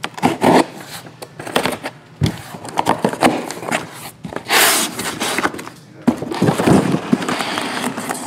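Cardboard case of shrink-wrapped trading-card boxes being unpacked by hand: cardboard rustling and scraping, with knocks as the boxes are slid out and set down on the padded table. A longer scrape of cardboard comes about four and a half seconds in.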